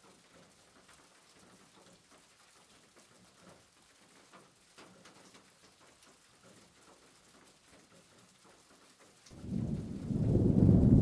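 Faint crackly hiss, then about nine seconds in a sudden loud low rumble begins and keeps going.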